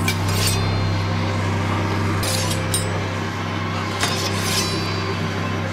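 Pairs of sharp metallic clinks, each pair about a third of a second apart and ringing briefly, come three times over a low steady hum.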